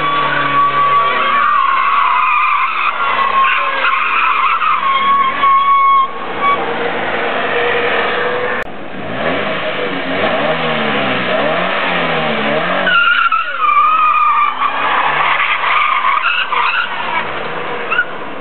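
Daewoo Nexia sliding round on tarmac, its tyres squealing while the four-cylinder engine revs up and down. The sound comes in two runs, broken off abruptly about nine seconds in.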